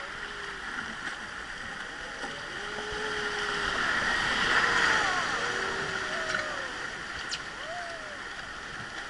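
Rushing white water of river rapids around a wooden boat, growing louder about halfway through as the boat runs through the churning rapid, then easing. A few short wavering tones sound faintly over the water.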